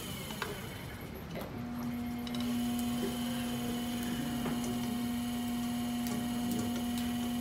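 Electric potter's wheel running with a steady motor hum. The hum drops out for about a second and a half near the start, then comes back at the same pitch.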